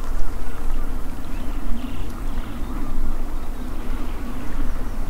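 Wind buffeting the camcorder microphone, a heavy, uneven low rumble with a steady hum beneath it.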